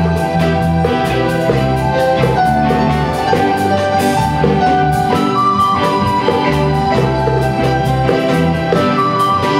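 Chinese traditional orchestra playing a steady-paced tune: held high melody notes over a bass line that moves in regular steps.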